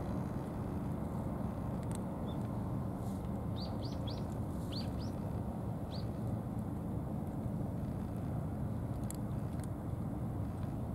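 A steady low outdoor rumble, with a small bird giving about six short, falling chirps in quick succession a few seconds in.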